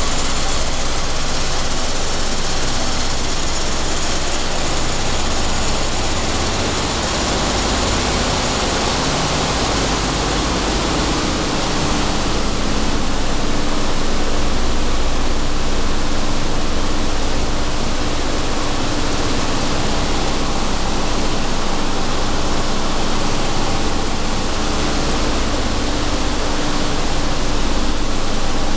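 Steady noise of sunflower seed processing machinery running: the dehullers, vibrating screens and seed flowing through the line. A steady low hum joins about eleven seconds in.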